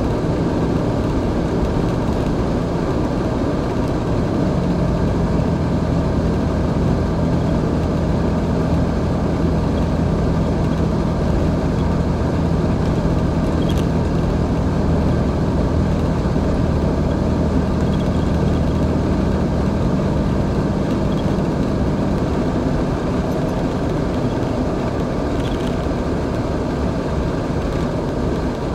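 Car engine drone and tyre and road noise heard from inside the cabin while cruising at highway speed. The steady engine pitch shifts slightly about four seconds in and again around twenty seconds in.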